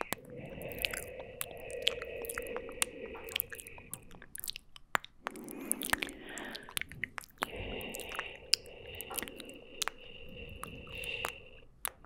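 Wet ASMR mouth sounds close to a fluffy microphone windscreen: many quick clicks and smacks of lips and tongue. Under them, a steady breathy layer comes in two long stretches with a short break in the middle.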